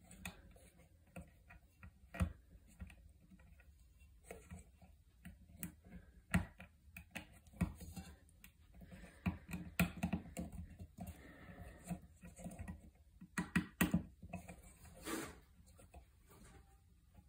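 Irregular light clicks and taps of small metal parts being handled and fitted at the centre of a Rotax 377 rewind starter's plastic pulley, with a short scrape a little before the end.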